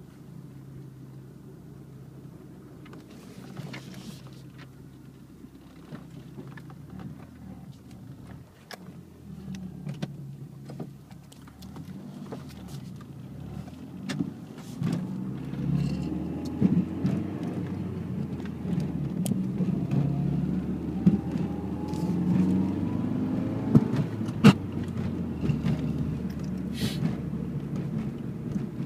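Nissan Z sports car's engine heard from inside the cabin, idling steadily at first and then running louder and rougher as the car drives off. A faint rising whine comes in near the middle, and there are a few sharp clicks, the loudest about three-quarters of the way through.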